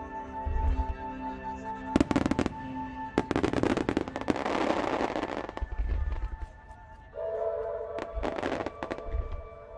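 Fireworks going off: low booms and quick runs of sharp crackling, with a hissing burst about halfway through.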